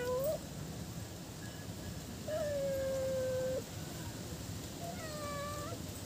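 Cat meowing three times: a short call right at the start, a long, steady meow held for over a second about two seconds in, and a shorter meow about five seconds in.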